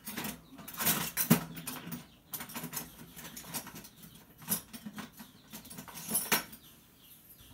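A string of light, irregular clicks, knocks and rustles from kitchen utensils being handled, with one sharper knock about a second in.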